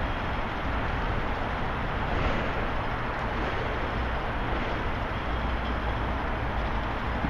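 Steady outdoor city ambience: a continuous hiss and rumble of distant road traffic, with low wind buffeting on the microphone.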